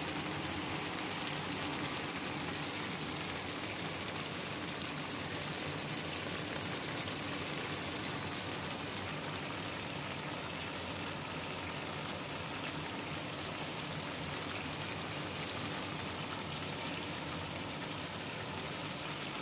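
Tomato and caper sauce sizzling and bubbling steadily in a frying pan around fish fillets, with many fine crackles.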